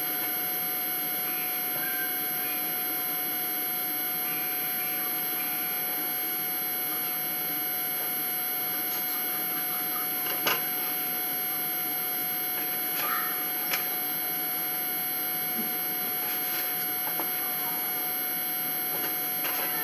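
Steady hum and hiss with a constant thin whine. There are a few light clicks, the sharpest about ten and fourteen seconds in.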